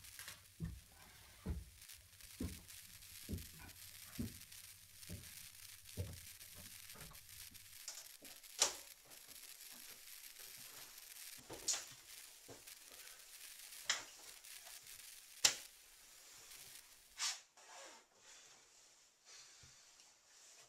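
Footsteps climbing a staircase: steady thuds about once a second for the first seven seconds. After that come several sharp clicks a few seconds apart.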